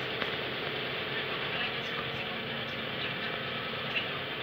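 Heavy diesel lorry engine idling steadily, with an even low rumble.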